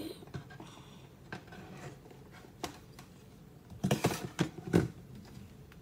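Hard plastic plates clacking and knocking together as one is taken down from a stack: a couple of single clicks, then a cluster of knocks about four seconds in.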